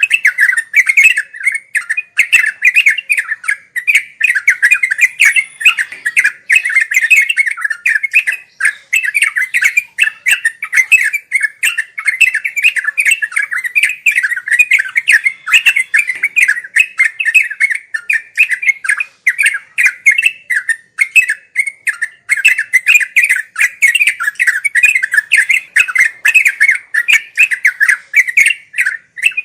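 Yellow-vented bulbul (trucukan) singing a continuous, rapid run of chattering notes. This is the fast, unbroken 'ngeropel' song used as a master recording for training caged birds.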